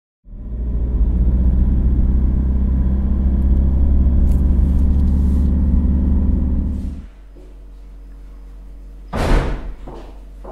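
A loud, low vehicle-like rumble that drops away after about seven seconds, leaving a faint hum. Near the end, a sharp bang like a door slamming, then a few short knocks like footsteps.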